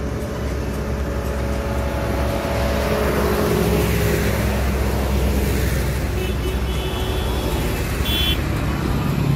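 Farm tractors in a convoy driving past one after another, their diesel engines swelling as each one goes by, loudest about four seconds in. A short high-pitched sound comes near the end.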